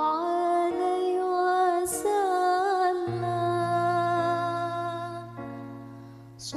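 Slow, soft devotional sholawat singing: a voice holding long, wavering vowels over sustained low accompaniment notes, with a breath about two seconds in and another just before the end, the phrase fading out before that second breath.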